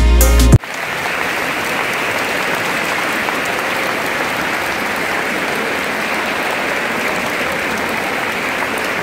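Music cuts off abruptly about half a second in, and a large audience's steady applause follows.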